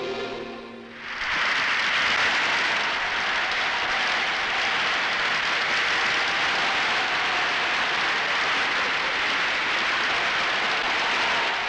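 Music fades out in the first second, then a large crowd applauds steadily.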